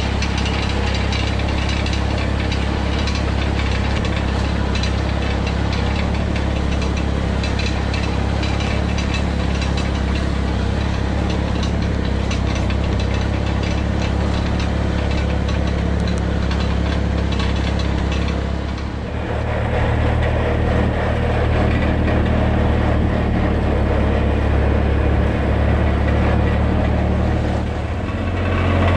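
An engine running steadily with a low hum. About two-thirds through it dips briefly and carries on at a different pitch.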